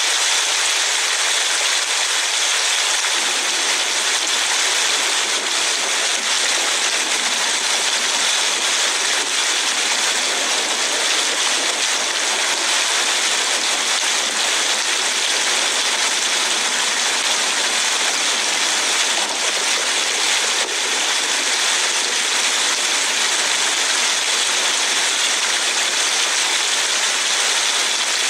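Steady hiss of rain on a moving car, heard from inside the cabin, with the rush of tyres on the wet road; the lower rush grows a few seconds in.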